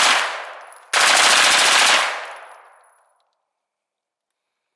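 CMMG 9mm carbine firing full auto with full metal jacket rounds. A burst ends just under a second in, and a second burst of about a second follows, its echo fading out.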